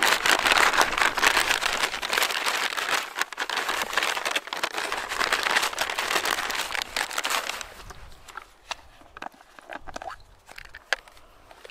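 Plastic MRE flameless ration heater bag crinkling and crackling steadily as the ration pouch and heater element are worked into it. About eight seconds in it eases off to a few scattered rustles.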